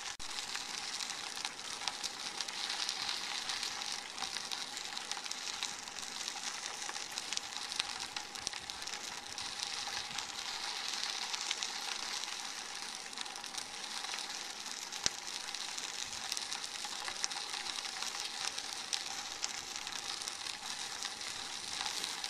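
Bicycle tyres rolling over a crushed-gravel trail: a steady, fine crackling hiss, with one sharper click about fifteen seconds in.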